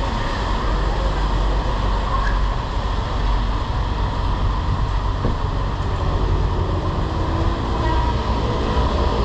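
Steady rumbling wind and road noise on a bicycle-mounted action-camera microphone while cycling through wet city streets.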